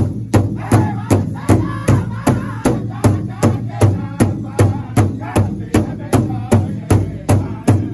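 A powwow drum group striking a large shared drum together with padded drumsticks in a steady unison beat, about two and a half beats a second, while the men sing an intertribal song over it.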